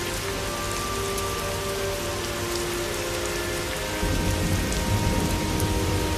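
Steady rain sound effect, as a cartoon soundtrack ambience. About four seconds in, a low rumble of thunder builds under it.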